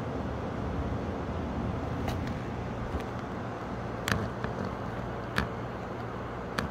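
Steady outdoor rumble of gusty wind and street traffic noise ahead of a thunderstorm, with a handful of short, sharp clicks scattered through it.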